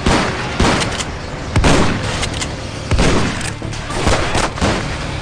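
A shootout of revolver and pistol shots: about ten sharp bangs in five seconds, unevenly spaced, some in quick pairs.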